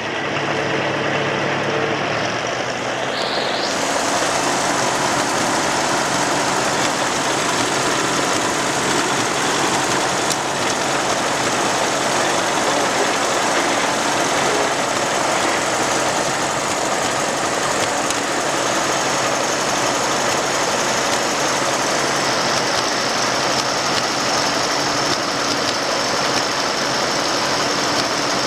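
Four-cylinder engines of a tandem-coupled pair of Ferguson TE-A20 tractors running steadily while ploughing.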